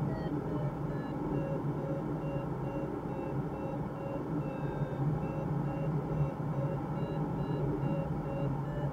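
Glider's audio variometer beeping in short, even pulses, about two a second at a steady pitch, the vario's signal that the glider is climbing in lift. Under it, the steady rush of air past the cockpit canopy.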